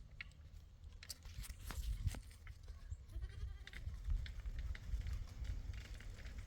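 A sheep bleating once, faintly, about three seconds in, among scattered clicks and knocks over a low rumble.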